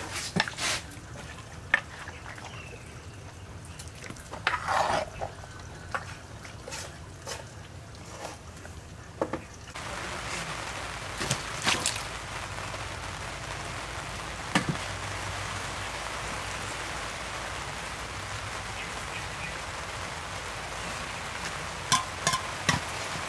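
Wet salad being mixed in a wooden mortar with a pestle and metal spoon: sloshing, stirring noises with sharp clicks of wood and metal against the mortar. About ten seconds in a steady hiss comes in, with a few scattered clinks of a spoon on a metal tray.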